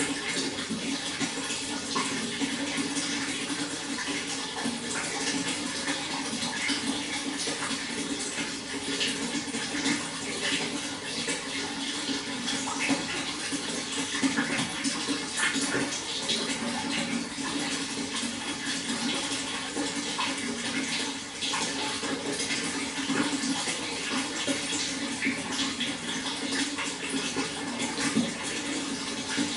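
Water flowing and splashing steadily, a continuous rushing with many small splashes.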